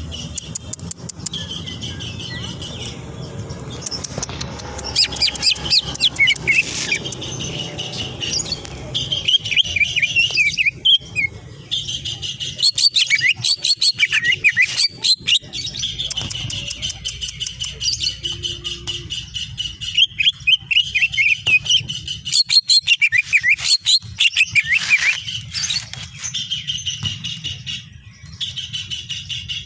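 Greater green leafbird (cucak ijo) singing a long, fast, varied song of rapid chirps, trills and sweeping whistles, with brief pauses. A steady low hum runs underneath.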